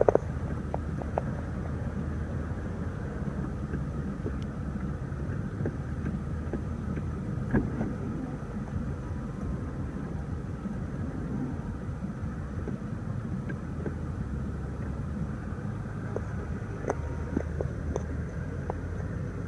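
Steady low hum in the cabin of a BMW 650i Gran Coupe with its twin-turbo V8 idling, with a few light clicks from the controls.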